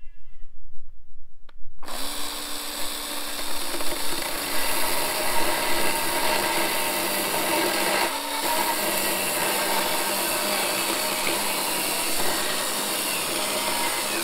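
A RYOBI One+ 18V cordless chainsaw starts about two seconds in and runs steadily, cutting into the top of a pine post. It stops briefly a little past the middle, then runs on.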